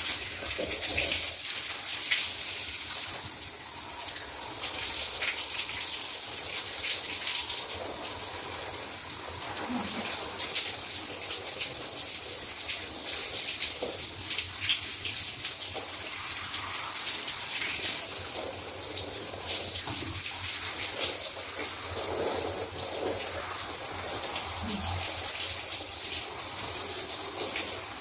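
Water spraying steadily from a handheld shower head and splashing over a person and onto the floor, with small irregular splashes throughout.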